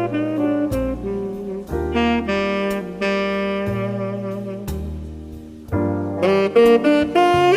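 Background music: a smooth jazz track with a saxophone playing held melody notes over a bass line and light percussion.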